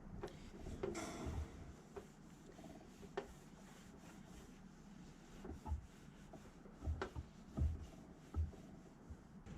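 Scattered light knocks and taps, with a short scraping rub about a second in and a few louder dull thumps in the second half, as of objects being handled and set down.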